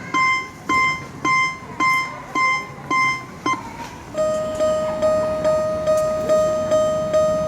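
Japanese level-crossing warning bells (fumikiri "kan-kan") ringing: a high, bright bell strikes evenly nearly twice a second, stops after about three and a half seconds, and about half a second later a second crossing's lower-pitched bell starts, ringing faster, nearly three strikes a second.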